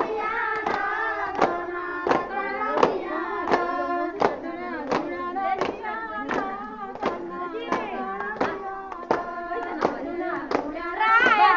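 Women and girls singing a Bathukamma folk song together while clapping their hands in time, about three claps every two seconds. The singing runs on as one melody, and the claps are the sharpest sounds.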